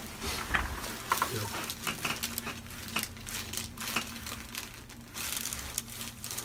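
Rustling and scattered small clicks of a person shifting position on a chiropractic treatment table, over a faint steady hum.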